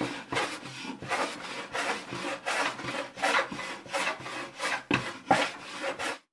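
Metal hand plane taking shavings off a wooden slab, a rapid series of short rasping swishes, about two strokes a second.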